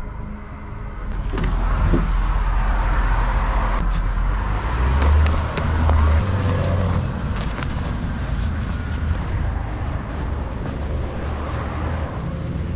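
Gusty wind rumble on the microphone and rustling as someone walks briskly outdoors, with a few scattered footsteps and clicks; the rumble starts about a second in.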